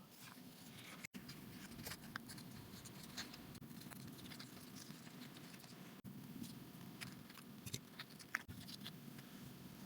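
Faint craft-table handling sounds: scattered light clicks, taps and scratches of paper and tools being worked, over a low steady hum.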